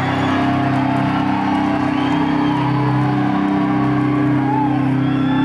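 Live metal band playing loud, with sustained guitar and bass tones ringing steadily and the crowd whooping and shouting over them.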